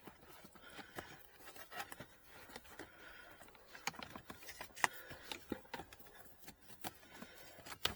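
Light, irregular plastic clicks and rustling as a pleated cabin air filter is handled and worked into its plastic housing in the car's footwell, with one sharper click about halfway through.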